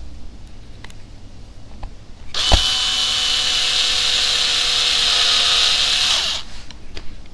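Cordless power screwdriver running to drive a screw into the plastic battery tray of an RC crawler chassis: a steady motor whine for about four seconds, opening with a sharp knock and winding down in pitch as it stops. A few small clicks come before it.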